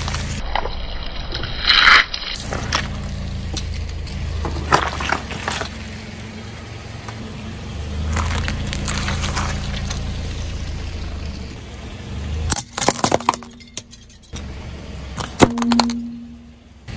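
A car tyre rolling slowly over a series of objects and crushing them: a rubber chicken with a pineapple, then dragon fruits, then small brittle coloured pieces. Sharp cracks and crunches stand out over the car's low running rumble.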